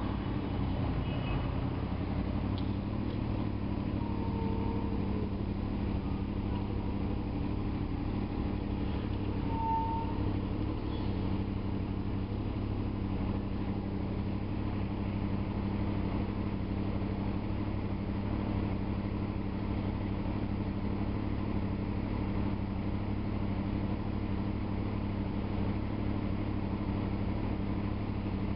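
Honda VFR motorcycle's V4 engine idling steadily.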